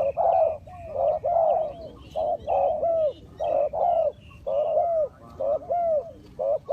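Spotted doves cooing: a steady run of short, arched coo notes in quick groups, with almost no pause between groups.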